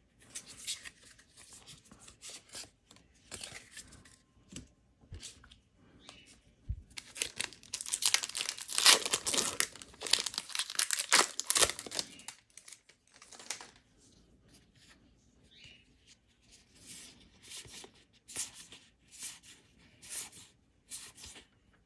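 Foil wrapper of a Modern Horizons 2 set booster pack being torn open and crinkled by hand, loudest in a stretch of several seconds in the middle.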